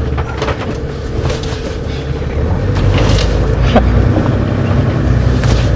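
Toyota Land Cruiser engine pulling in four-wheel drive over rough ground, heard from inside the cabin, with scattered knocks and rattles. The engine gets louder about two and a half seconds in.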